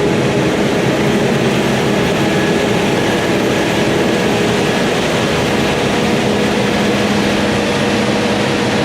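Large diesel farm machine running steadily, a loud even engine drone with no change in pitch.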